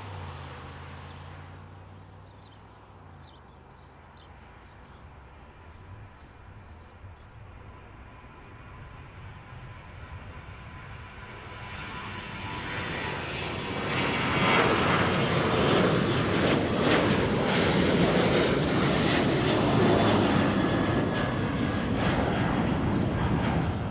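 Jet engines of a Southwest Airlines Boeing 737 (CFM56-7B turbofans) at takeoff power during the takeoff roll and climb-out. The sound starts as a distant rumble, builds about halfway through, and is loudest as the jet passes overhead near the end.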